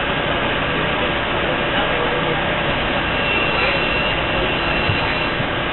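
Interior noise of an LIRR M1 electric multiple-unit railcar moving off slowly from a station stop: a steady rumble and hum. A faint high whine comes in about halfway through.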